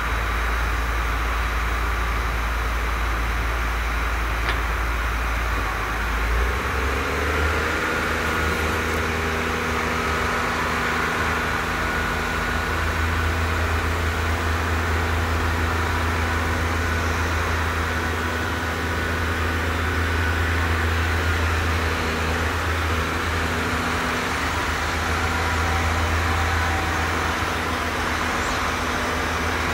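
Tractor diesel engines running steadily while a tractor-drawn dump trailer tips a load of chopped maize. The engine note changes about six seconds in, and a faint steady whine sits above it.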